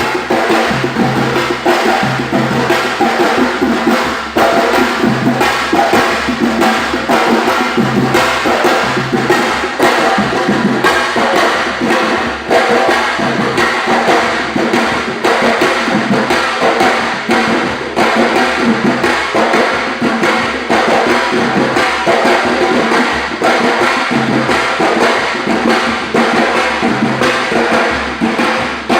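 A group of Brazilian timbal (timbau) hand drums played together in a fast, dense rhythm of sharp strokes, with a low bass note recurring in short bursts.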